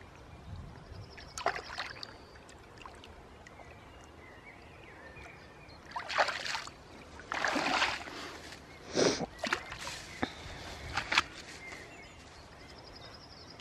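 Shallow lake water splashing and sloshing in several short bursts, the loudest in the middle, as a grass carp is let go from the hands and the hands are rinsed in the water.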